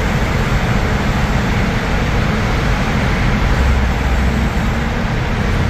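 Steady road and engine noise heard from inside a taxi driving through a road tunnel.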